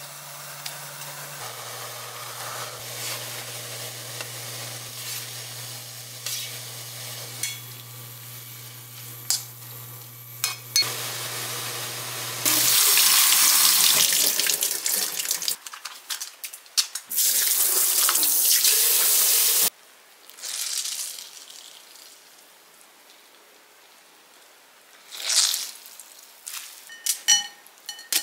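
A pan of salted water boiling with mushrooms in it, over a low steady hum from the cooktop. A kitchen tap then runs hard onto a metal mesh strainer of blanched mushrooms, in two loud stretches. Near the end, metal tongs clink against the strainer and bowl.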